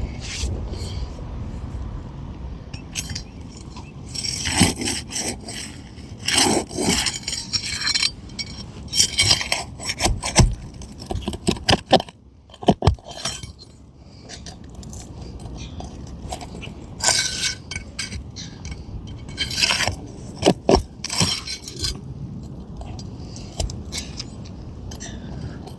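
Hand tool scraping under a roof shingle, with irregular clinks and clicks as roofing nails are worked loose and popped out one by one.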